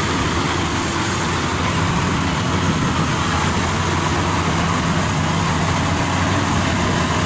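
Maxxi Bimo 102 rice combine harvester running steadily while harvesting: a low engine hum under a loud, even rushing of threshing machinery.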